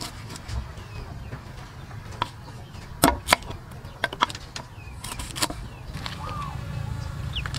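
Kitchen knife chopping lemongrass on a wooden cutting board: irregular sharp knocks of the blade hitting the board, about ten in the first five seconds, two close together about three seconds in.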